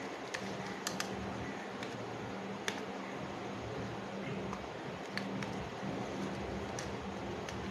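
Scattered sharp clicks and taps of a screwdriver and copper wire on the screw terminals of a plastic switchboard as the connections are made, over a steady low hum.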